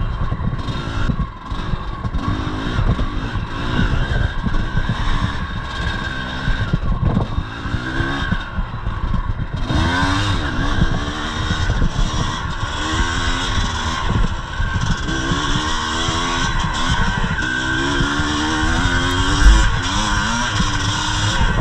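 1983 Yamaha IT 250's two-stroke single-cylinder engine revving up and falling back again and again under hard riding on a trail. A single hard thump near the end.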